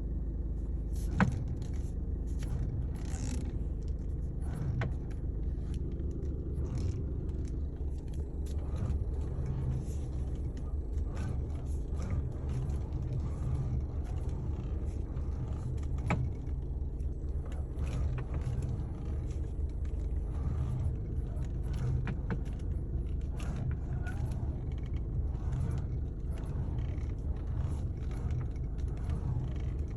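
Volkswagen Passat B6 steering rack knocking: irregular dull knocks, the sharpest about a second in, over a steady low rumble from the car. The knocking is the sign of a worn steering rack.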